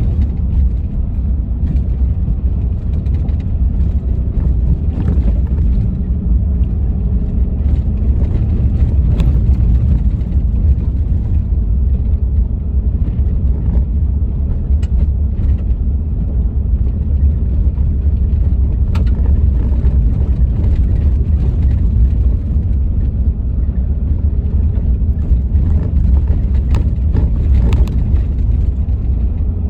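Vehicle driving down a bumpy, potholed driveway: a steady low rumble of tyres and road, with scattered sharp knocks and rattles as it jolts over the potholes.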